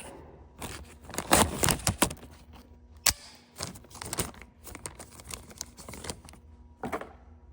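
Hands working a small plastic zip-tie clip open: a string of sharp plastic clicks and crackling rustles, with a final click near the end.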